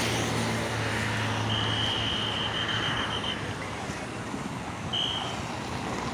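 Road traffic passing on a highway, a steady hum of vehicle engines and tyres. A high steady tone sounds for nearly two seconds about a second and a half in, and briefly again near the end.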